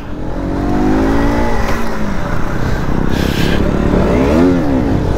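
KTM RC 125's single-cylinder four-stroke engine revving hard in wheelie attempts. The note climbs for about a second and a half, drops, then rises and falls again near the end, the power falling off as the front comes down.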